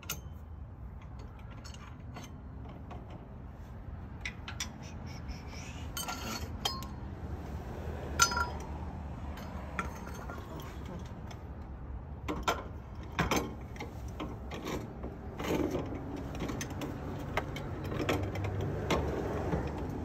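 Metal trailer-jack parts and tools being handled, with scattered clinks and sharp knocks (the loudest about 8 s and 12 to 13 s in) over a steady low rumble.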